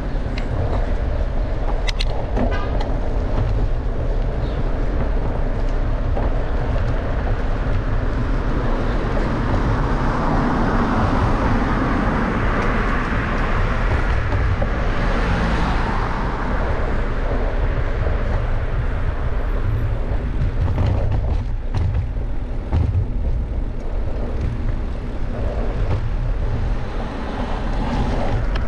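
Steady wind and road rumble at a riding bike's microphone, with a motor vehicle passing that swells and fades about midway.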